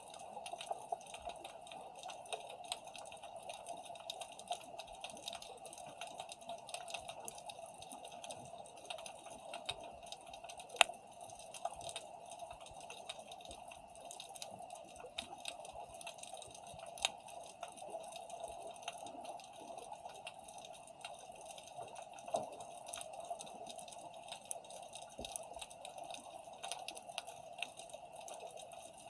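Underwater ambience picked up by a submerged camera: a steady hiss with dense, irregular crackling clicks, and one sharper click about eleven seconds in.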